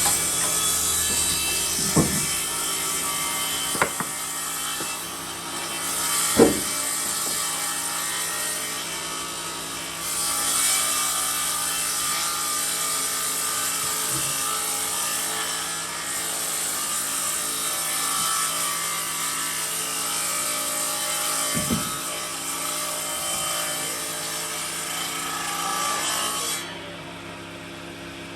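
Sawmill saw cutting steadily through wood, with a few sharp knocks along the way; the cutting noise stops abruptly near the end.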